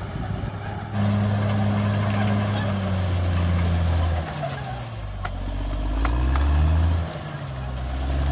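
Caterpillar D6R XL bulldozer's diesel engine running, its pitch and loudness dropping and rising as the engine load changes.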